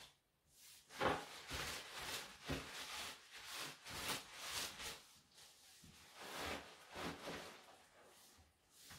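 Cloth rag scrubbed back and forth over plastic sheeting on a tabletop: a run of rubbing strokes, about two a second, stopping near the end.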